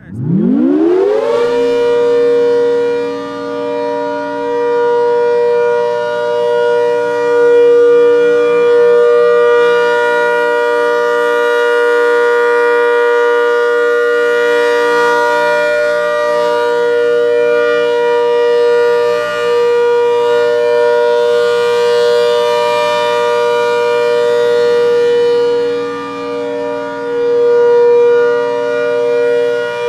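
ACA Hurricane 130 MKII outdoor warning siren sounding its alert signal: it winds up quickly from a low growl to full pitch in about a second and a half, then holds one steady tone. The loudness swells and dips slowly as it sounds.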